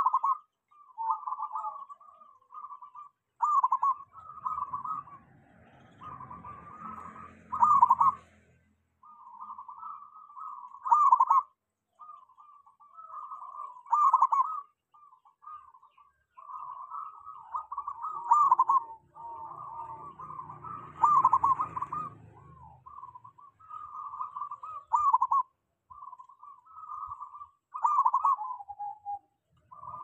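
Zebra dove (perkutut) cooing its song phrase after phrase with only short breaks: the long, unbroken 'ngelos' singing of a dove in strong song.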